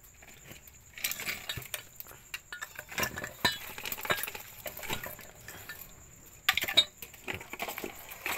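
Clinking and clattering of a metal basin of fish being handled: irregular sharp clinks from about a second in, with a louder pair of knocks about six and a half seconds in.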